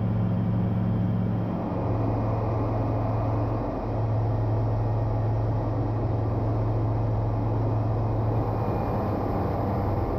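Single-engine propeller airplane's engine and propeller droning steadily, heard inside the cockpit as a low, even hum with rushing air noise.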